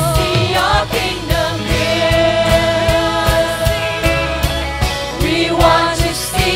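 Worship team singing a contemporary worship song, several voices together over a band with a steady drum beat; the words sung are "Revival, we want to see your kingdom here."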